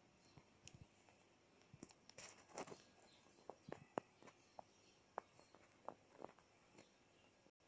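Near silence: quiet room tone broken by scattered faint, short clicks and taps at irregular intervals.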